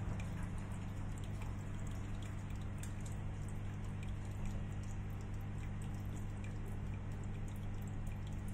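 A steady low hum with an even hiss, with faint scattered small ticks over it.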